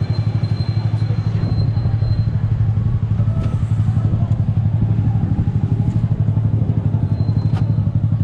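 Custom big-scooter engine idling steadily, its exhaust pulsing fast and evenly without revving.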